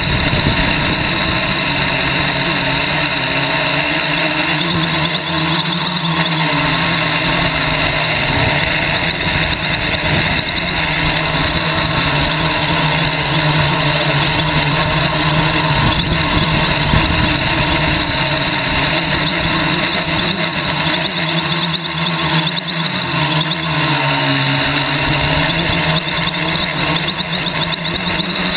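Quadcopter's electric motors and propellers whirring steadily in flight, heard close up from a camera on the frame, with a rushing of prop wash over it. The pitch wavers a little up and down as the throttle changes.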